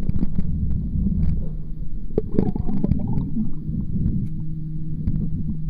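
Muffled underwater rumbling and sloshing of water around the microphone of a waterproof Kodak PlaySport camera held beneath the surface, with scattered faint clicks. A low steady hum joins about four seconds in.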